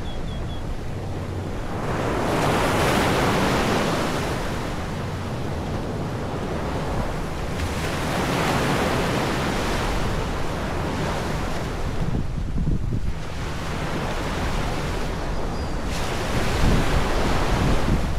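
Sea waves washing onto a beach, the surf swelling and fading every several seconds, with wind rumbling on the microphone.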